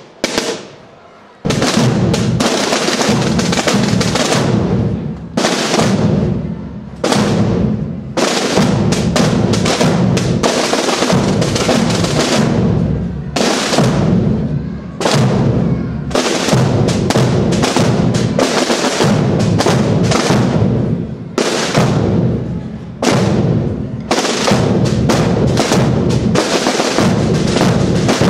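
A Holy Week procession drum band of side drums and large bass drums beating a loud, steady marching rhythm together. The drumming starts about a second and a half in.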